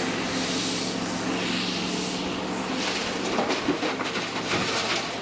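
Hitachi EX8000-6 mining excavator running: a steady low engine drone, with a few clanks from about halfway through.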